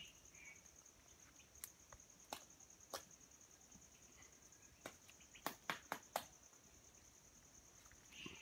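Faint forest ambience: an insect trilling steadily in a fast-pulsing high note, with a few sharp clicks scattered through, bunched together about five and a half to six seconds in, and short higher chirps at the start and near the end.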